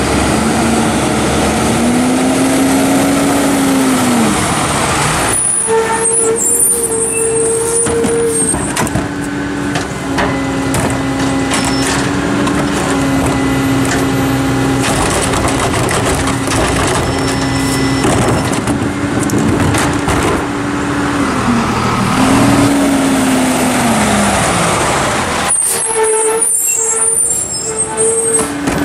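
Garbage truck on a Hino chassis working a rear-load stop. The diesel engine rises and falls in pitch near the start and again near the end. In between it holds a steady raised speed while the hydraulics lift and dump trash carts, with air-brake hiss.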